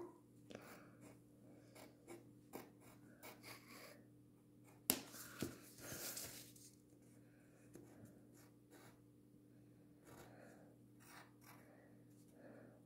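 Faint scratching of a pencil drawing on paper in short, irregular strokes. A sharp tap comes about five seconds in, and the paper rustles as it is shifted around six seconds.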